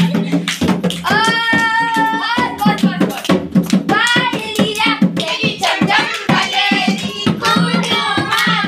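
High-pitched singing, with a long held note about a second in, over a steady beat of sharp hand-struck strokes several times a second.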